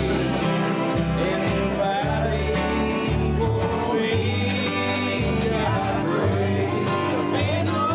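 Background country-bluegrass music with guitar and a steady beat over a moving bass line.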